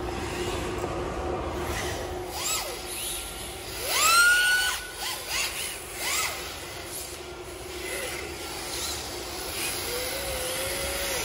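Electric RC drift cars' brushless motors whining in several rising sweeps as the throttle is worked, the loudest sweep about four seconds in, rising and holding a high whine before dropping away.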